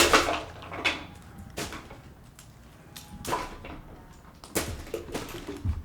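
Scattered sharp clicks and knocks, about half a dozen over a few seconds, of plastic fidget toys being handled and set down.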